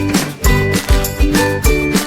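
Background music with a steady beat and bright tinkling notes.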